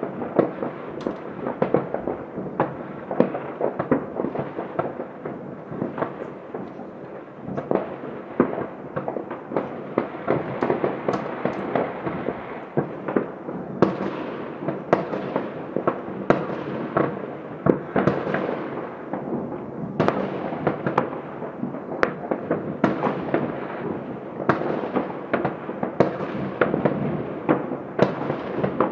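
Fireworks and firecrackers going off all over a city at once: a dense, continuous barrage of overlapping distant bangs and crackles, with louder single reports about every second.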